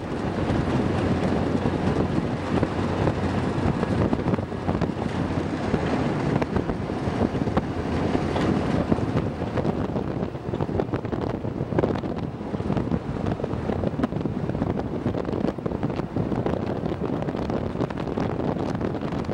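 A vehicle driving over beach sand: steady engine and tyre noise with wind buffeting the microphone.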